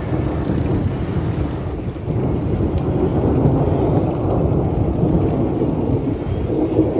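Thunder rolling from storm clouds in a long, continuous low rumble that swells and eases several times.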